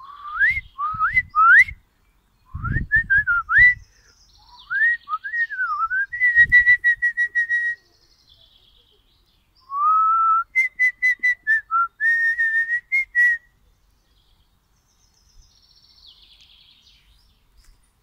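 A person whistling close to the microphone: several bursts of short, bird-like phrases, quick upward slides and warbled held notes, for about the first thirteen seconds. Fainter, higher bird calls can be heard behind, most clearly near the end.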